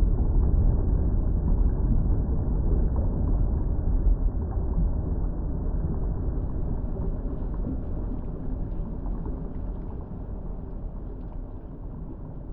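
Bubbling volcanic lava: a deep, dense churning noise that slowly fades away.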